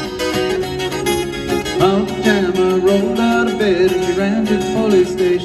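Live band music led by plucked guitar, with a voice singing from about two seconds in.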